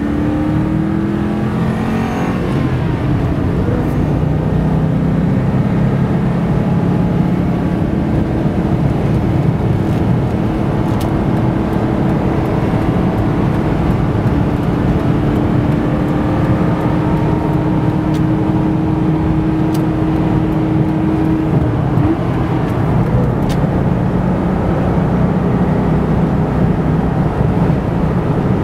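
1998 Ford Mustang Cobra's 4.6-litre DOHC V8, heard from inside the cabin with tyre and road noise: the engine pulls up through the revs over the first couple of seconds and then holds a steady highway cruise, easing off about 21 seconds in.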